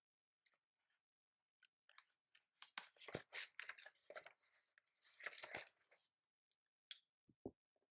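Typing on a keyboard: a quick, irregular run of key clicks starting about two seconds in and lasting some four seconds, then a few single clicks near the end.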